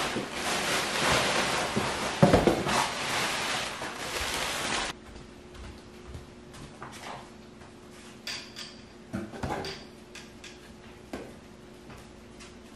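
Loud rustling and crinkling of packing material being handled in a cardboard box, cutting off suddenly about five seconds in. After that come a few faint clicks and knocks over a steady low hum.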